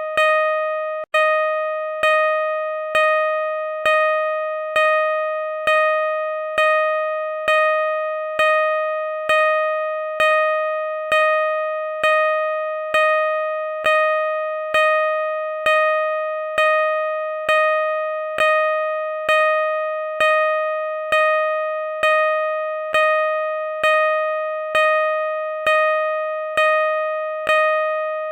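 Car reverse parking sensor beeping at a steady pace: one electronic tone repeating about once a second, each beep fading straight into the next, with one very brief dropout about a second in.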